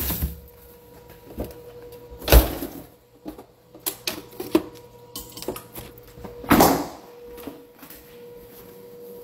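Clicks and knocks of items being handled in an open refrigerator, with a sharp knock about two seconds in and a longer thud about six and a half seconds in as the refrigerator door is shut. A faint steady tone runs underneath.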